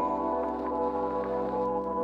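Background music of long held chords with no beat.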